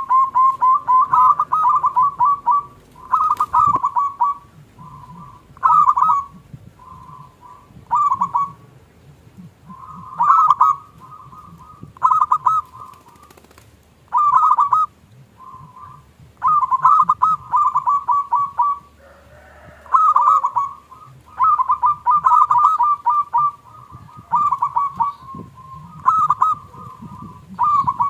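Zebra doves (perkutut) cooing: short phrases of rapid, stuttering notes repeated every second or two, some overlapping.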